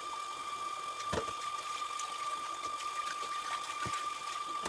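A steady high-pitched electrical whine over a faint hiss, with a couple of light knocks, one about a second in and one near the end.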